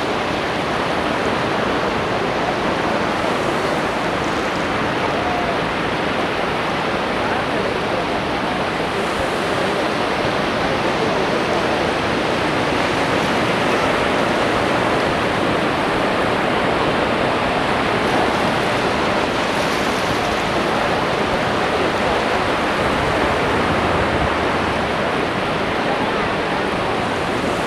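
Sea surf washing onto a beach: a steady, even rush of water noise.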